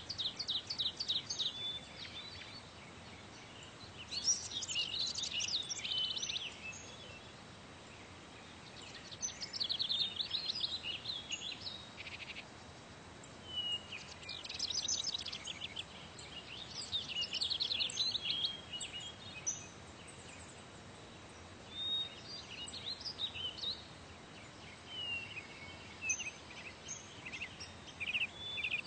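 Birds singing: bursts of fast, high chirping trills every few seconds, with short single chirps between them.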